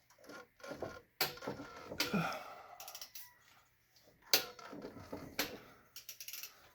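Socket wrench on the crankshaft pulley bolt, turning the engine over by hand to bring the camshaft lobes up: irregular metallic clicks and knocks with the sound of tools being handled.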